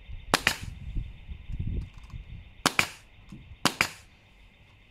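Pneumatic nail gun firing three nails into a wooden door frame, each one a sharp crack. The first comes shortly after the start and the other two about a second apart near the end.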